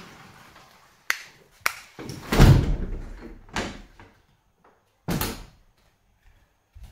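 Metal-framed bi-fold glass patio doors being slid and folded shut: two sharp clicks, then a heavy thud with a rumble of the panels running along the track about two and a half seconds in, the loudest sound, and two further knocks a second and two and a half seconds later.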